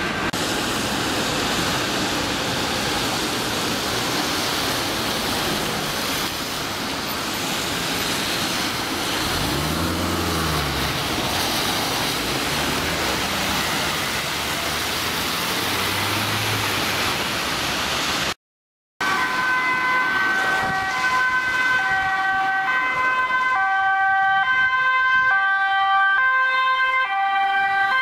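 Traffic noise on a wet road, with a heavy vehicle's engine rising and falling as it passes about ten seconds in. After a short break the siren of an approaching Dutch ambulance sounds, switching back and forth between a high and a low note.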